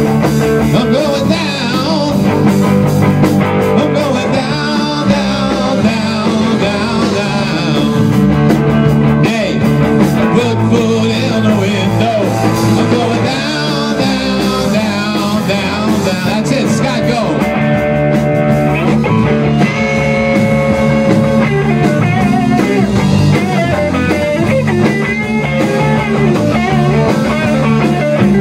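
Live rock band playing a song: electric guitar, electric bass guitar and drum kit.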